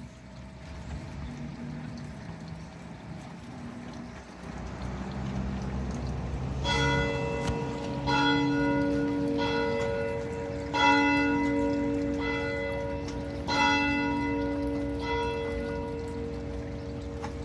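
The giant outdoor cuckoo clock striking on its bell, one strike roughly every one and a half seconds, each ringing on into the next. Low tones like a tune play in the first few seconds before the strikes begin.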